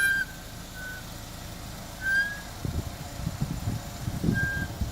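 Front brakes of a 2007 Chevy Equinox squealing in short, high-pitched chirps, four of them, as the brakes are applied while reversing. The squeal comes only in reverse, on front brakes and rotors replaced about a month earlier. From a little past halfway, a low, uneven rumble joins in.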